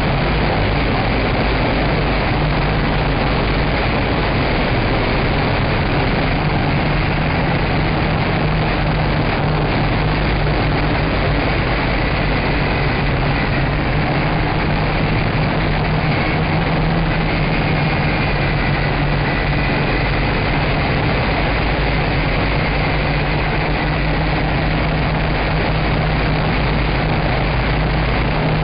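Nine Eagles MOLA M24 quadcopter's motors and propellers buzzing steadily in flight, heard close up through its onboard camera. A faint whine within the buzz wavers in pitch now and then.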